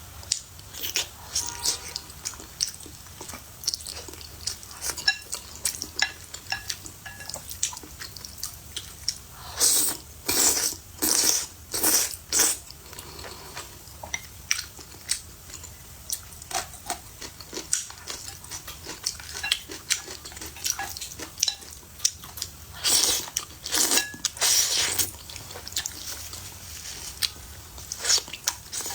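A person eating close to the microphone: wet chewing and biting with many sharp smacking clicks. There are louder, longer bursts of eating noise about ten seconds in and again about twenty-three seconds in.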